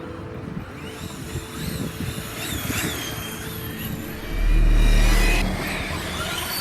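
RC car electric motors whining, the pitch repeatedly rising and falling as the throttle is worked. A loud low rumble lasts about a second and a half past the middle.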